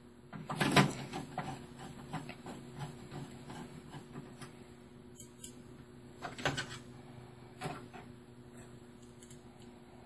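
Screwdriver driving motherboard screws into a Dell OptiPlex 380 desktop's metal chassis: scattered small clicks and metallic knocks, the loudest about a second in.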